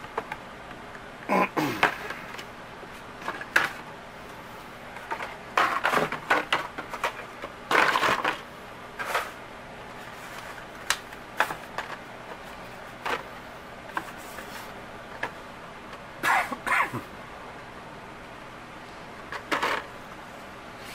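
Hot Wheels die-cast cars in plastic blister cards being dropped into an open cardboard box: irregular clacks and rustles every few seconds over a steady hiss.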